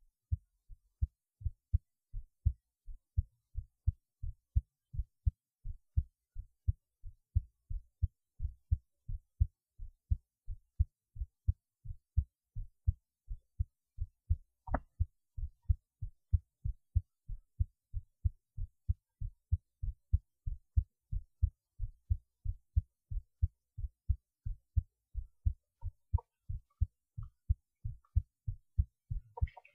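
Human heartbeat recorded while lying on the left side: a steady, regular run of paired low thumps (lub-dub). A single brief click comes about halfway through.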